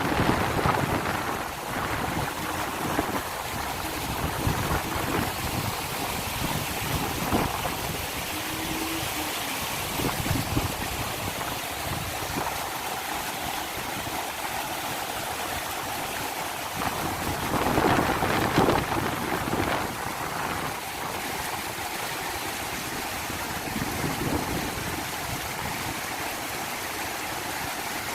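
Rainwater runoff rushing over small rocks like a stream: a steady rushing of water, swelling louder briefly about two-thirds of the way through.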